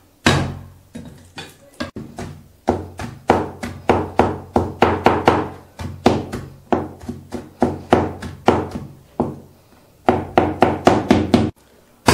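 Chinese cleaver mincing smashed garlic on a wooden cutting board: repeated sharp chopping knocks, about three a second. There is a short lull, then a quicker run of chops, stopping just before the end.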